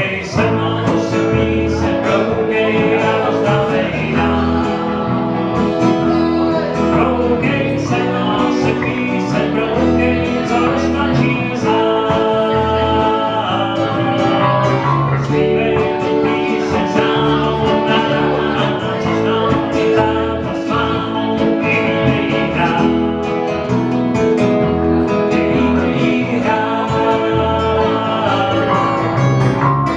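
A live acoustic and electric guitar band playing a song, with a singer at the microphone. The music is steady and unbroken.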